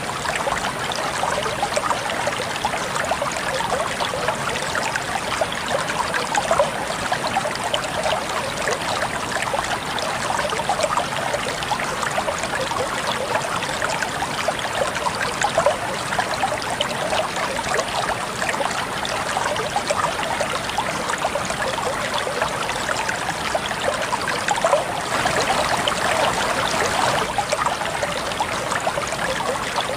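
Water flowing and trickling steadily over stones in a small stream, a continuous babble of fine splashes and gurgles.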